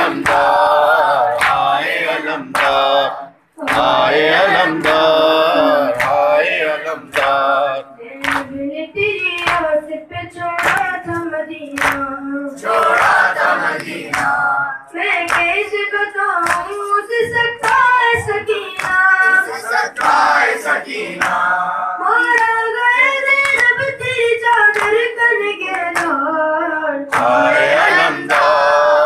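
A boy's voice chanting a noha lament with vibrato, other voices joining in at the start and near the end, over a steady beat of hands striking the chest in matam.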